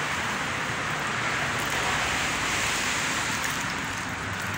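Steady rushing noise of sea surf and wind at the shoreline, with a few faint ticks near the end.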